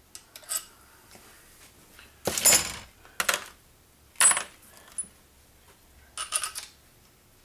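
Small loose metal parts and hand tools clinking and rattling as they are handled. There is a longer rattle about two seconds in, then several sharp clinks, some with a short high ring.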